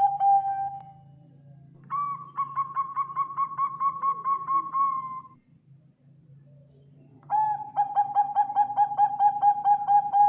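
Zebra dove (perkutut) singing: long phrases of rapid stuttering coos, about four to five a second. One phrase tails off as it begins, another runs from about two to five seconds in, and a third starts at about seven seconds, slightly lower in pitch.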